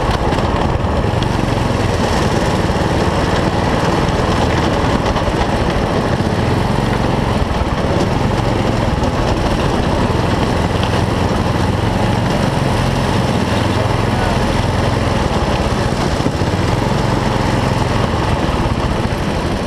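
Single-cylinder four-stroke racing kart engine running at low, steady revs under the driver's seat, with no revving up or down.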